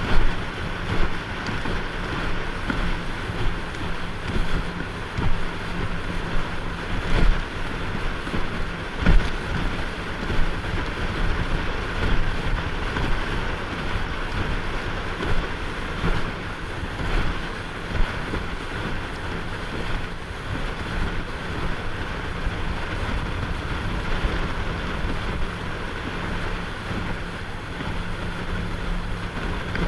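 Motorboat under way: its engine runs with a steady hum while wind buffets the microphone and water rushes past the hull, with a couple of brief knocks about seven and nine seconds in.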